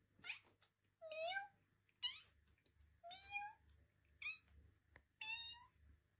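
Domestic cat meowing six times, about once a second, alternating longer, lower meows with short, higher-pitched ones that sweep upward.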